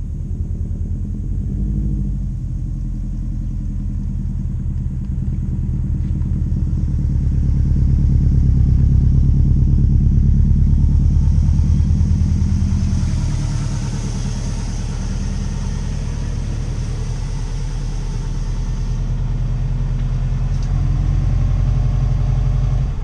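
2002 Subaru WRX's turbocharged 2.0-litre flat-four (EJ205) running as the car drives slowly past close by and pulls up. The sound is loudest as the car passes, about halfway through, then eases and rises again near the end.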